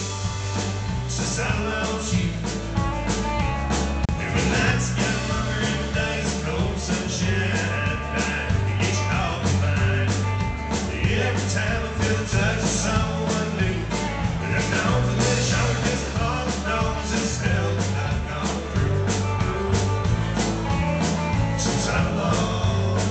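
Live band playing with drums keeping a steady beat, bass guitar, electric guitar and acoustic guitar.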